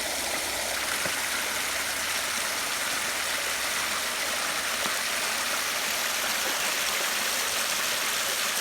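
A small creek waterfall rushing and splashing steadily.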